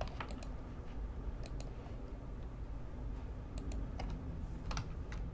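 Sparse, irregular clicks of typing on a computer keyboard over a low steady hum.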